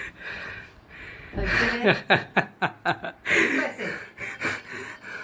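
People laughing: chuckles and short laughs, with a quick run of laughter pulses about two seconds in, mixed with a little talk.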